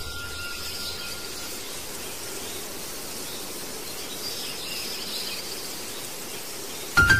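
Rural outdoor ambience: insects chirping and birds calling over steady background noise.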